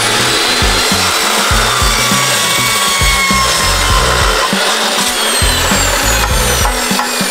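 Metal-cutting chop saw cutting through steel tubing: a loud, steady grinding screech.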